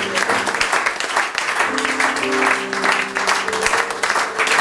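Congregation applauding with quick, dense hand claps over background music of held, sustained chords.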